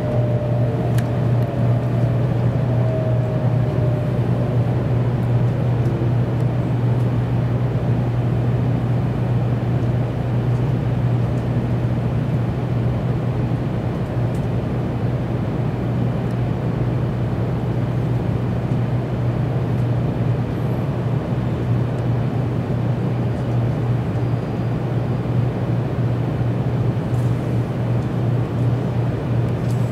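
Kyushu Shinkansen train heard from inside the passenger car, running with a steady low hum and rumble as it slows into a station, with a falling whine in the first few seconds.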